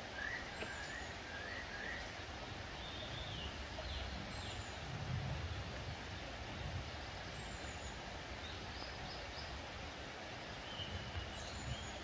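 Short phrases of whistled bird calls, a few notes at a time, recurring every couple of seconds over a steady outdoor background hiss, with a few low rumbles in between.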